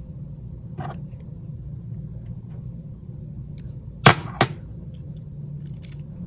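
Small repair tools and phone parts handled on a workbench: faint scattered clicks, then two sharp clicks about a third of a second apart, over a steady low hum.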